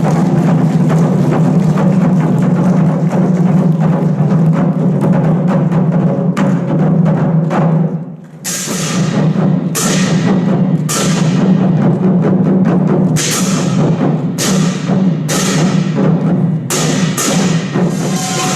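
Korean pungmul percussion ensemble playing: dense, continuous drumming, a brief break about eight seconds in, then loud accented strikes with a bright, ringing crash roughly once a second.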